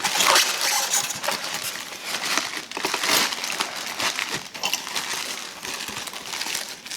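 Styrofoam packing and plastic wrapping being handled and pulled apart: irregular crinkling and rustling with many small clicks.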